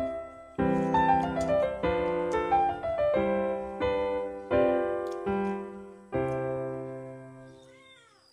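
Background piano music: a phrase of struck notes falling step by step, ending on a long note that slowly fades out.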